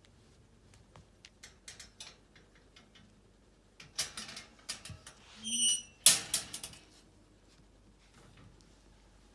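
Young puppies stirring in their nest: scattered rustling and scrabbling, busiest a little past halfway, with one brief high squeak among it.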